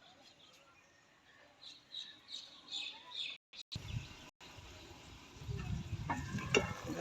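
Small birds chirping, a quick series of short high chirps. After a break in the sound, a low rumbling noise follows with a few clicks near the end.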